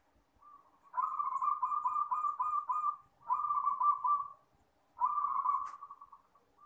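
Zebra dove (perkutut) cooing in three phrases of rapid, rolling coos. The first starts about a second in and lasts some two seconds; two shorter ones follow.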